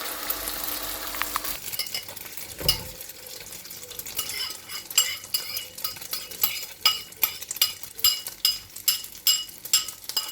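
Beaten egg mixture sizzling in hot oil in a frying pan, the hiss dropping away after about a second and a half. Then a metal utensil clinks against the pan about twice a second as the eggs are stirred and spread.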